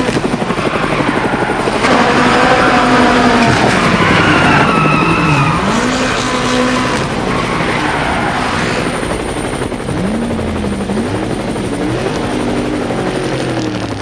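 Helicopter rotor chopping overhead while several car engines rev up and down hard through the gears at speed.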